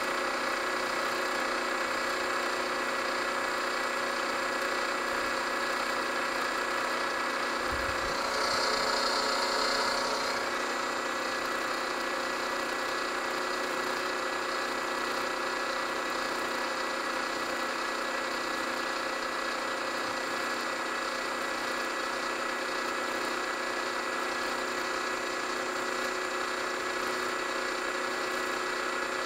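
Milling machine spindle running steadily, a small end mill spotting a hole into a metal cylinder block. There is a low thump about eight seconds in, followed by a slightly louder, brighter stretch of cutting for a couple of seconds.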